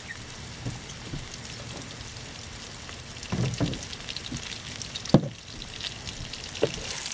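Cornstarch-dusted cod fillet sizzling and crackling steadily in hot oil in a pan, with one soft knock about five seconds in.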